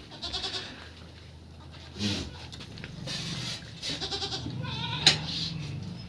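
Goats bleating in a pen: short bleats, one with a wavering pitch about four seconds in, and a sharp knock about five seconds in.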